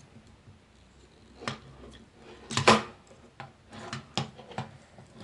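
Hard plastic toy parts clicking and clacking as a ladder accessory is worked into place on a Transformers action figure: a handful of short knocks, the loudest a quick cluster a little past halfway.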